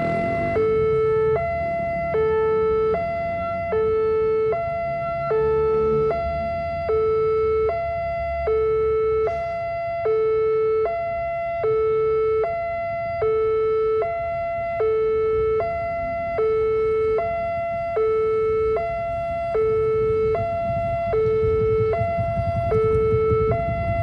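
Railway level-crossing warning alarm sounding continuously: an electronic two-tone signal alternating steadily between a lower and a higher tone, about one cycle a second, warning that a train is approaching and the gate barrier is closing. A low rumble grows under it near the end.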